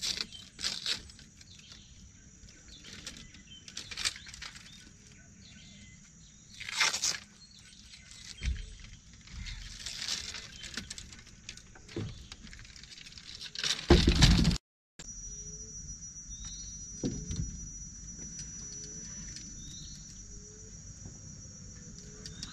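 Fishing rods and reels being handled and sorted: scattered knocks, clicks and rustles, the loudest a clatter about fourteen seconds in. Behind it a steady high insect drone, and in the last few seconds a bird repeating a short call about once a second.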